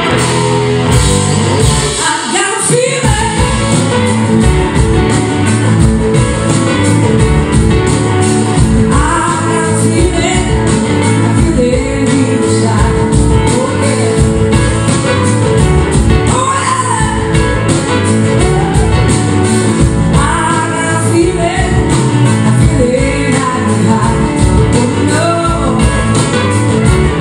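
Live rock band playing loud: electric guitar, drum kits and a horn section of saxophone, trumpet and trombone, heard from the audience in a large concert hall. The full band comes in about two seconds in.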